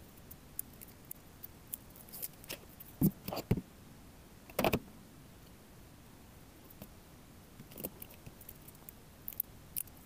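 Light handling sounds of adhesive mounting strips and a plastic docking station: scattered small clicks and crackles, with a few louder knocks about three and four and a half seconds in as the dock is turned over on the wooden desk, and soft crackling near the end as the strips are pressed on.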